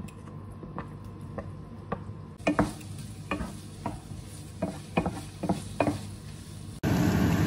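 Wooden spoon stirring chunks of marinated pork belly in a non-stick frying pan: a run of knocks and scrapes against the pan, about two a second, over faint sizzling. Near the end the sound cuts abruptly to a louder, steady noise.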